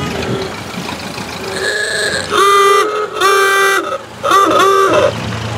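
Ford Model A horns honking: about four toots, the last two short and quick together, with a fainter higher toot before them. A low engine hum comes up near the end.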